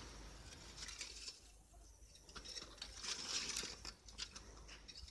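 Blade of a hand-pushed bicycle plough scraping and crunching through loose soil and weeds between crop rows, in uneven spells as it is pushed along.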